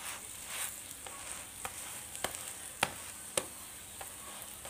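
Keema-stuffed paratha frying in ghee in a flat pan, a steady sizzle, with a metal spatula clicking against the pan several times, three sharper clicks in the second half.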